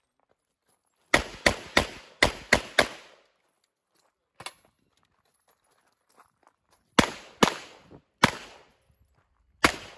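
Handgun fired rapidly, six shots in about two seconds, then after a pause four more shots at a slower, uneven pace.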